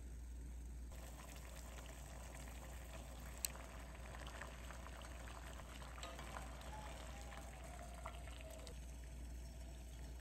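Water boiling in a small hammered aluminium saucepan with kale leaves blanching in it, bubbling with many small pops. A few sharp clicks come from wooden chopsticks against the pot. The bubbling starts about a second in and stops about a second and a half before the end.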